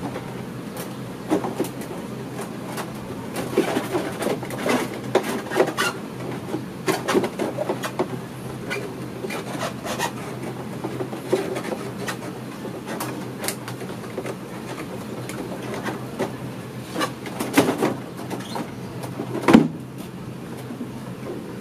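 Hard plastic body panels of a Honda Airblade 150 scooter being handled and refitted: scattered clicks, light knocks and rubbing of plastic on plastic, with one louder knock near the end.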